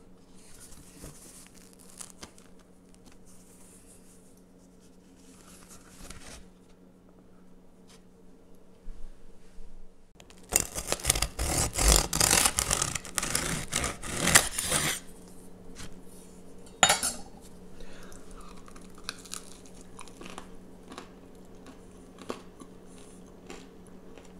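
Crisp crust of a baked rye loaf crunching and crackling under a bread knife for about four seconds, starting about ten seconds in, after several seconds of faint scraping. A single sharp click follows a couple of seconds later.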